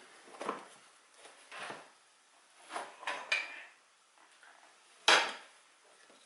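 Gaming chair parts being handled during assembly: a series of separate knocks and clatters, one with a short metallic ring about three seconds in, and the loudest knock about five seconds in.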